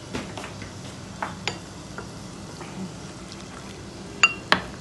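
A metal spoon clinking against a glass bowl while stirring cornflour and water into a slurry: scattered light clinks, some ringing briefly, with the two loudest close together near the end.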